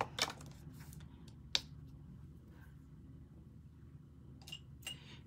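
Quiet handling of makeup items: a few small clicks and taps as products are picked up and set down, one sharp click about a second and a half in and two more near the end, over a low room hum.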